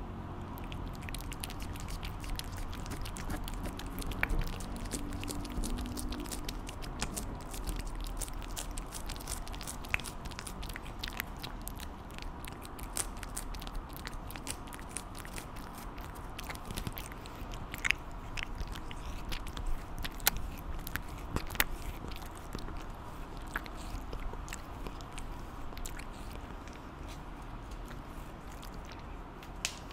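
A cat licking a paste treat from a tube held against the microphone: quick, wet, close-up licks and mouth clicks that thin out near the end.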